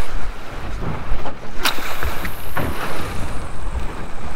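Wind buffeting the microphone over sea and boat noise on open water, with a few sharp clicks or knocks, the sharpest about a second and a half in.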